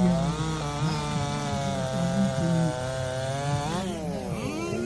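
Racing chainsaw running at full throttle through a log, then the throttle is released about three and a half seconds in and the engine revs fall away.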